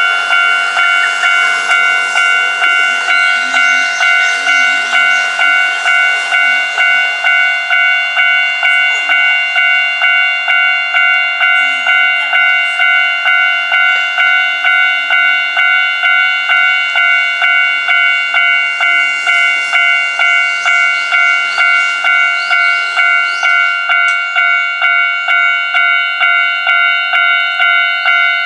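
Japanese level-crossing electronic warning bell ringing steadily in a regular rhythm, about one and a half strokes a second, while an Izu Kyuko Line train passes through the crossing with a rushing hiss of wheels and rails.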